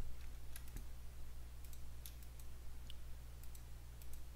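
Faint, scattered clicks of a computer mouse, a few irregular clicks over the seconds, over a steady low hum.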